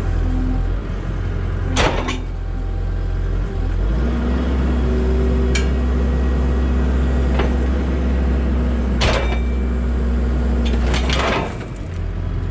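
Skid steer engine running, then working harder from about four seconds in, holding a steady, louder note for about seven seconds before easing off. Several sharp metal clanks sound over it as the chained cattle guard is pulled.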